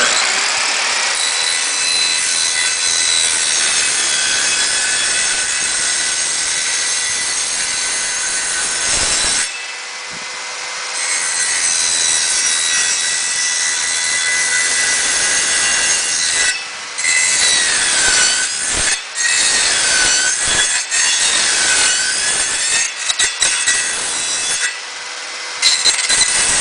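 Handheld electric circular saw cutting through a vinyl sliding-door frame, its motor whining at a steady pitch under the blade noise. It eases off for about a second around a third of the way in. In the second half the cut goes stop-and-go, with short breaks and the motor's pitch dipping and recovering several times.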